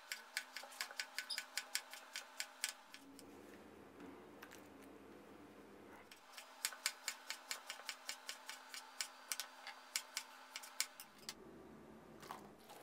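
Kitchen knife slicing through long green eggplant onto a wooden cutting board: a fast, faint run of clicks, about five a second, which stops for a few seconds and then starts again.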